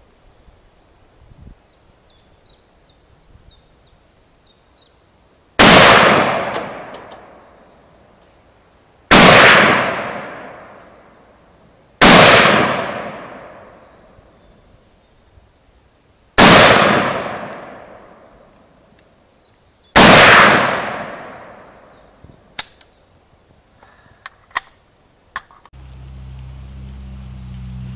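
Five single shots from a Radom Sport (civilian Beryl) semi-automatic rifle, fired one at a time about three to four seconds apart, each ringing out with a long echo. A few light metallic clicks follow the last shot.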